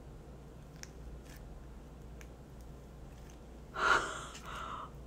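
A few faint soft clicks as slime is pressed down into its plastic tub. About four seconds in comes a sharp gasp of surprise, then a shorter second breath.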